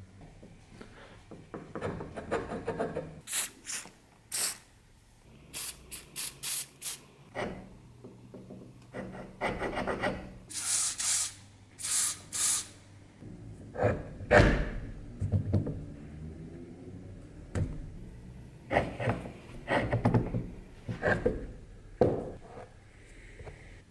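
Aerosol spray can hissing in short bursts onto a rusty bench vise, mixed with metal knocks, clanks and rubbing as the vise parts are worked by hand; the loudest knocks come a little past halfway.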